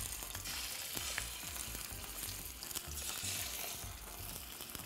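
Chicken drumsticks sizzling as they fry in very hot oil: a steady hiss with a few faint pops.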